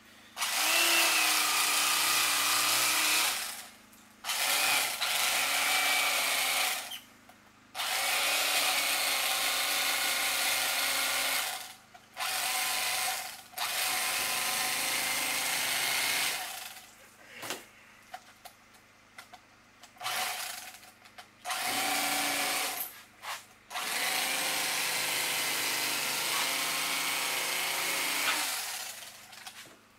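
Black and Decker corded electric fillet knife running in repeated runs of a few seconds each, switched on and off several times as its reciprocating blades cut along a bowfin.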